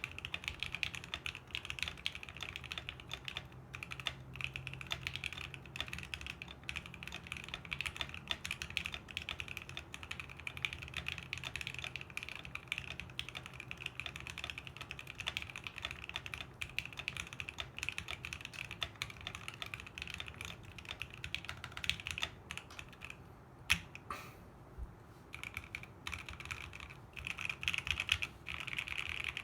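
Continuous typing on a Fuji 65 custom mechanical keyboard with lubed Seal linear switches, Everglide stabilizers and a carbon fibre plate: a dense, steady run of keystrokes. Near the end comes one louder stroke and a short pause before the typing resumes.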